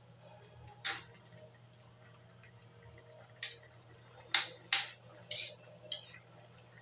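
Metal ladle scraping and clinking against the side of an aluminium wok while a chicken broth is stirred: one stroke about a second in, then five close together in the second half. A low steady hum runs underneath.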